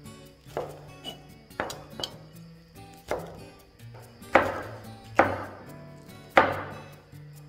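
Knife blade chopping a red chili against a wooden chopping board: a series of about seven irregular sharp knocks, the three loudest in the second half. Soft background music runs underneath.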